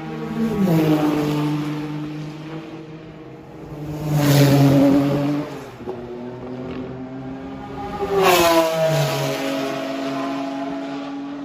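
Mazda Group C race car's four-rotor rotary engine, loud and rising and falling in pitch, with surges about a second in, around four to five seconds in, and just past eight seconds.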